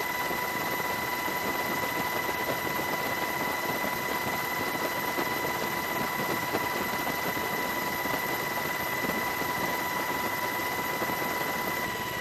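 Steady helicopter cabin noise: a constant engine and rotor drone with a steady high whine over it, unchanging throughout.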